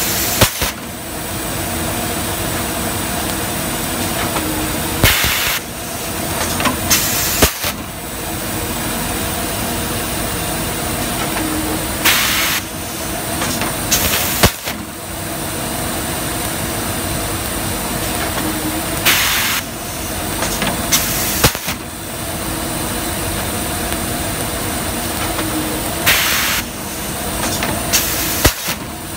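Plastic garbage-bag cutting machine running with a steady hum, broken by short hissing bursts in pairs about two seconds apart that repeat roughly every seven seconds as it works through its cycle.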